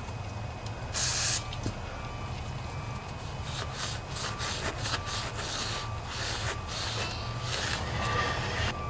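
Cloth rag rubbing and wiping inside the seal bore of a Briggs & Stratton Intek engine's sump cover, a run of quick scrubbing strokes in the second half, after a short burst of hiss about a second in.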